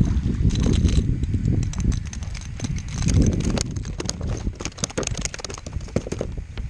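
A hooked speckled trout splashes at the surface beside a plastic kayak, then irregular knocks and taps sound on the hull as it is brought aboard, over a low wind rumble on the microphone.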